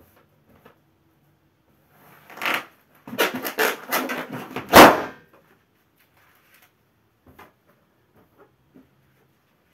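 A latex balloon squeezed under a bare foot, the rubber creaking and squeaking for a second or two, then bursting with one loud pop about five seconds in.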